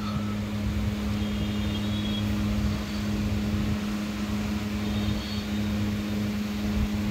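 Steady electric machine hum, a constant low drone with no change in pitch.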